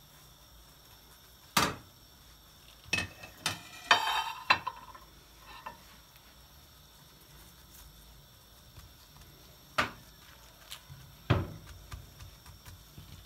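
Kitchen handling sounds: a few sharp knocks and clinks, a cluster of them with a brief ring about four seconds in, as gloved hands fold and press a filled yufka pastry on a stone countertop.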